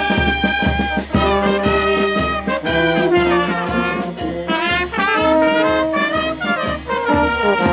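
Brass band playing: trumpets and euphoniums sounding a tune together over a steady percussion beat about twice a second.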